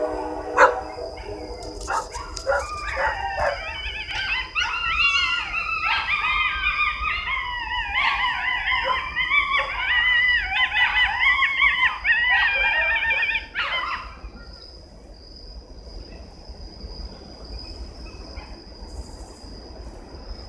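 A pack of coyotes howling, yipping and yodeling together in a chorus of wavering, rising and falling calls that starts about two seconds in and breaks off abruptly about fourteen seconds in. The last of a train horn sounds at the very start, and a passing train rumbles low underneath, with a steady high-pitched hum throughout.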